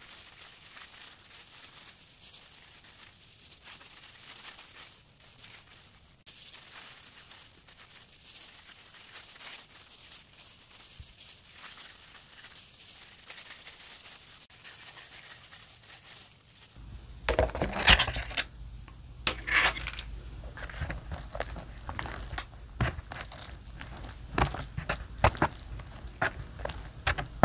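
Plastic food-prep gloves crinkling and rustling as hands press rice into fried tofu pouches. About two-thirds of the way through, this gives way to louder sharp clicks and clatter of wooden chopsticks working noodles in a cup-noodle bowl, with eating sounds.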